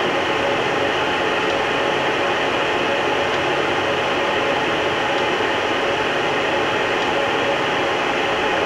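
Blanchard 11-20 rotary surface grinder running steadily with no grinding going on: an even machine whir with a faint steady hum in it.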